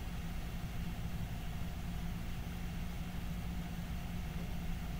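Steady low hum with a faint hiss over it, unchanging throughout, with no speech.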